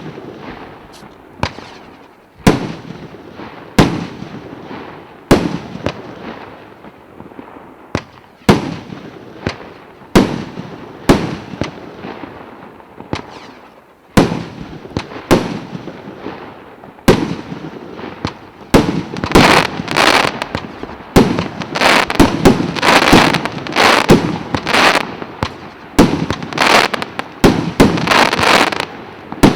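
49-shot 1.2-inch (30 mm) consumer firework battery firing: single bangs about every second to second and a half, each with a rumbling tail. About two-thirds of the way through, these give way to dense crackling bursts.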